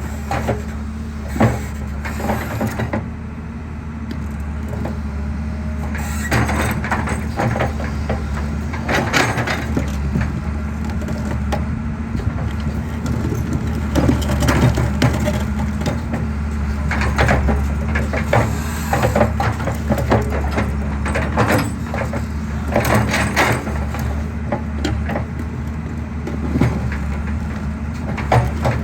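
Excavator engine running steadily, with irregular cracks and crunches of concrete breaking up under the machine.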